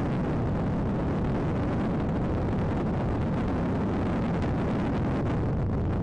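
Motor yacht under way, its twin MAN twelve-cylinder twin-turbo diesel engines giving a steady low rumble under a rushing noise of wind and water.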